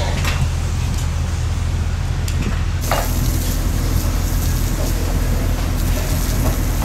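Steady low engine hum with the hiss of rain over it, and a few short knocks.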